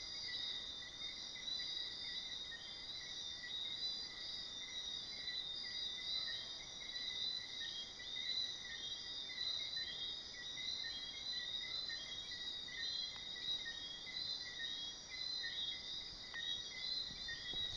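Night-time chorus of insects such as crickets: several steady high shrill layers with rapid, repeated chirps.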